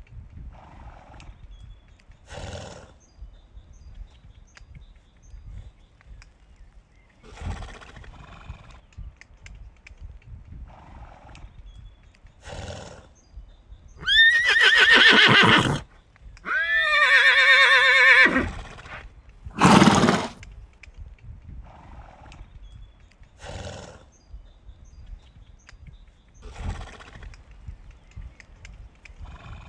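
A horse whinnying loudly twice in quick succession about halfway through, each call quavering and falling in pitch, followed by a short loud noisy blast. Softer noisy sounds come every few seconds before and after.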